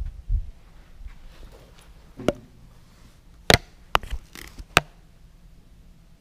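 Handling and movement noise from someone exploring with a handheld camera. A low muffled thump comes at the start, then a handful of sharp knocks and clicks come between about two and five seconds in.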